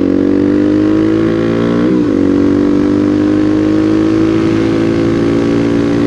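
Supermoto motorcycle engine pulling under steady acceleration, its pitch climbing slowly, with a quick gear change about two seconds in, over wind rush at road speed.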